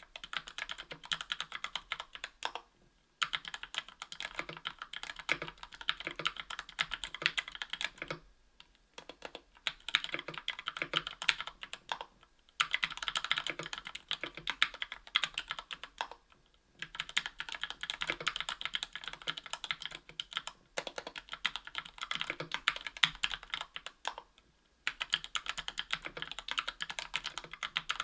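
Typing on a KBDfans Tofu 60% aluminium keyboard with Gateron Yellow Ink 60 g linear switches lubed with Krytox 205g0 and Cherry PBT keycaps. Fast keystroke clacks come in runs of a few seconds, broken by short pauses about every four seconds.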